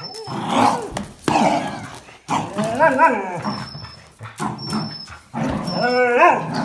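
Dogs growling as they tug at a towel between their teeth, with two higher, rising-and-falling whining calls, one about three seconds in and one near the end.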